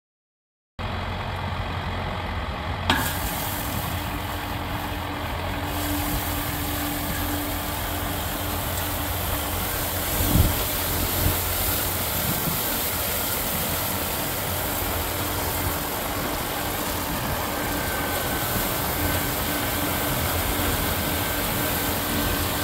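Kubota M4 tractor's diesel engine idling at about 1000 rpm, driving a loader-mounted hydraulic rotary broom sweeper that brushes through loose gravel with a steady hiss of thrown stones over a low rumble and a steady hum. The sound cuts in suddenly just under a second in. There is a sharp click about three seconds in and a couple of thumps around ten seconds in.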